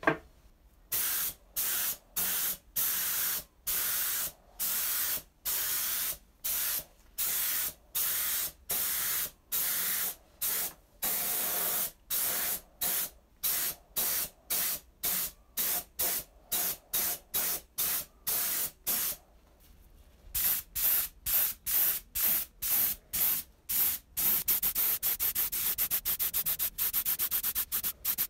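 HVLP gravity-feed spray gun hissing in short bursts of about two a second as paint is sprayed on. After a brief pause the bursts come faster and run almost together.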